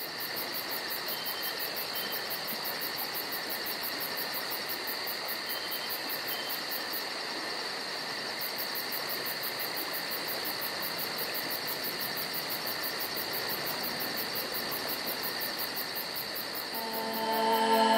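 Steady cricket-like insect chirring over a hiss, with a fast, even high pulsing. Music comes in near the end.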